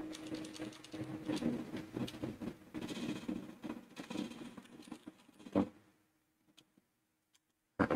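Computer keyboard typing in quick, irregular keystrokes, with a low steady hum underneath; the typing stops a little past two-thirds of the way through after one louder keystroke.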